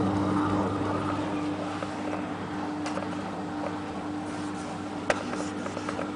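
Steady low hum from a Hotpoint WT960 washing machine that is switched on, with a faint click about three seconds in and a single sharp click about five seconds in.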